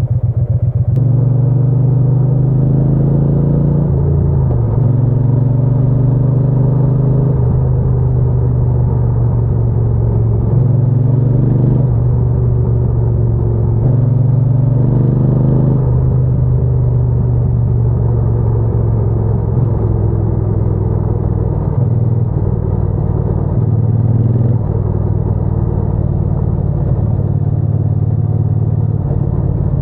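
Triumph Bonneville T120's parallel-twin engine and exhaust running under way. The low engine note steps up and down several times with throttle and gear changes, and there are short rising revs around 4, 12 and 16 seconds in.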